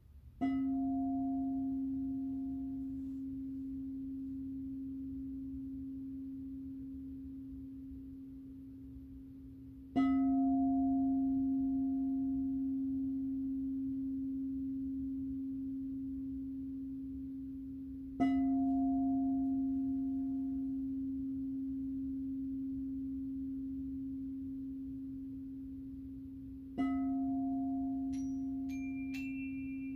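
Crystal singing bowl struck with a mallet four times, roughly every eight to ten seconds. Each strike rings out as one steady, pure low tone that slowly fades, its brighter overtones dying away first. Near the end, a few higher ringing tones come in on top.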